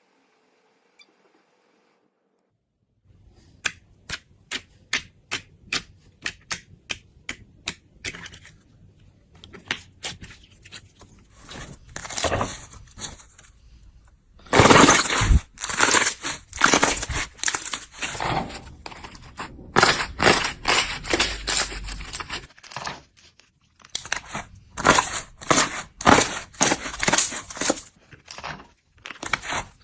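Slime being pressed and poked by hand, giving crisp clicks and crunches. It starts after a few seconds of near silence with sharp clicks about two a second, then turns into denser crackling and crunching in the second half, typical of crunchy slime.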